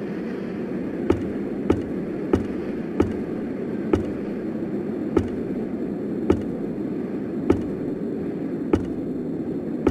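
About nine sharp, short knocks over a steady low rushing noise. The knocks start about a second in and come closer together at first, then at gaps of over a second.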